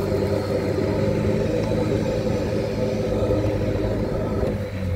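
Isuzu D-Max pickup driving on the expedition, its engine and road noise making a steady, even drone that cuts off abruptly at the end.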